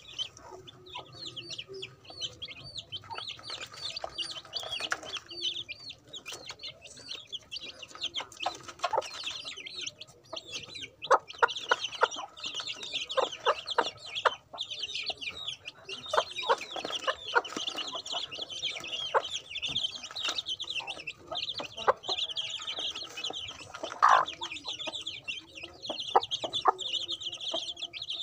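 A brood of chicks peeping constantly, many high, short peeps overlapping, busier in the second half. Scattered sharp ticks of beaks pecking at the feeding tray and soil run through it.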